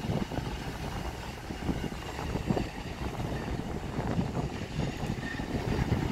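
Passenger coaches rolling past on the rails: a low rumble of wheels on track with uneven knocks.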